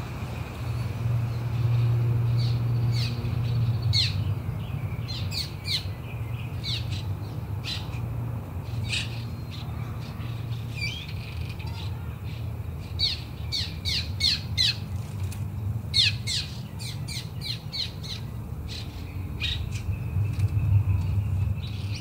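Forest ambience: small birds chirping in short, quick calls that come in bursts, over a steady low rumble.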